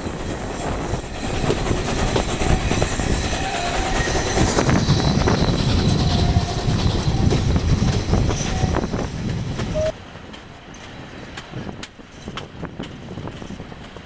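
Narrow-gauge (760 mm) steam train's carriages running, heard from an open carriage window: a loud rumble of wheels on rail with clicks over the joints. About ten seconds in it drops abruptly to a quieter run, in which separate clicks stand out.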